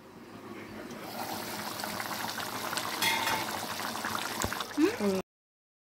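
Fish curry boiling in an open pan: a steady bubbling and sputtering that builds over the first second. A brief squeak near the end, then the sound cuts off suddenly.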